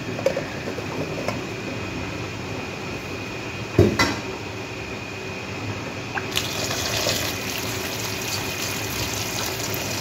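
Hot water draining from boiled macaroni in a metal colander, with a single knock about four seconds in. About six seconds in, a tap is turned on and runs a steady stream of water over the pasta to rinse it.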